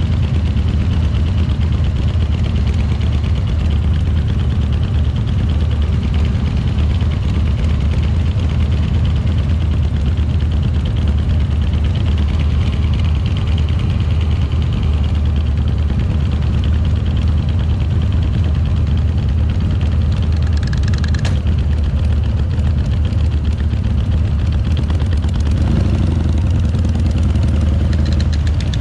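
Harley-Davidson V-twin motorcycle engine running steadily with a deep, even low rumble.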